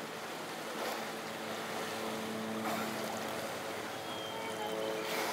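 Beluga whales vocalizing at the surface as they are hand-fed, with sustained pitched calls that have several overtones and a short high whistle about four seconds in, over water sloshing and splashing at the pool edge.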